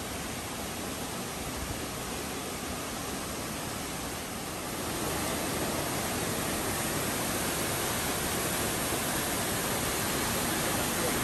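Steady rush of falling water from Silver Thread Falls, a thin 80-foot cascade, getting louder about halfway through.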